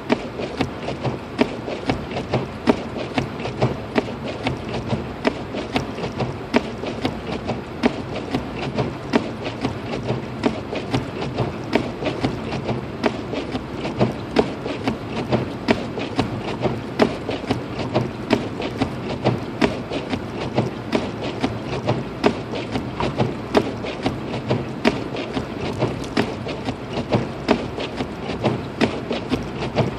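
Steady road and engine noise inside the cabin of a Lexus IS250 AWD driving through a snowstorm, with a rapid, irregular clicking and tapping that runs on throughout.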